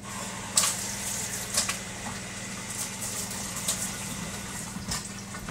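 Steady low machine hum, with a few short faint hissy noises over it.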